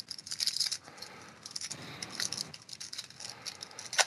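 Shiny foil wrapper of a trading-card pack crinkling and tearing as it is opened by hand, in a rapid run of crackles, with one sharp crack just before the end.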